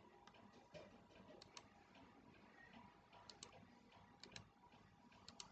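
Near silence: faint room tone with scattered soft clicks, several in close pairs.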